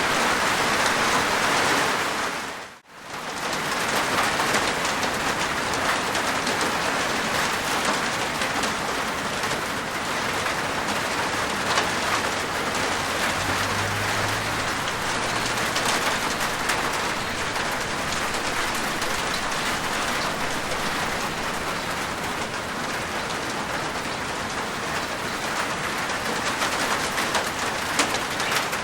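Steady rain falling on a rooftop: a dense, even hiss scattered with sharper individual drop hits. About three seconds in it fades almost to silence for a moment and then comes straight back.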